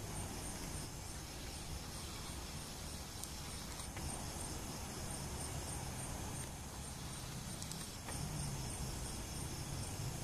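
Crickets chirping at night in a high pulse about twice a second, over a steady low rumble and hiss, picked up by a compact camera's built-in microphone.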